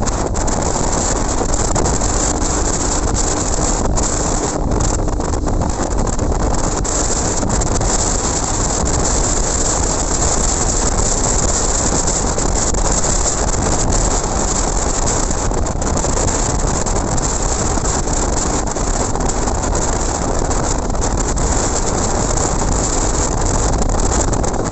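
Wind rushing over the microphone of a motorcycle riding at highway speed, a steady loud rush, with the motorcycle's engine running underneath.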